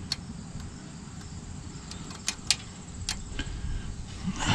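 Light metal clicks and taps as a magnet and tools work inside an open rear differential to fish out an axle C-clip. A handful of sharp clicks, two close together about halfway through, over a low steady background rumble.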